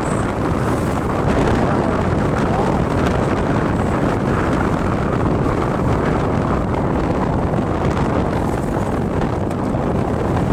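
Wind rushing over the microphone on a moving motorcycle, a loud, steady roar of wind and road noise with no distinct engine note.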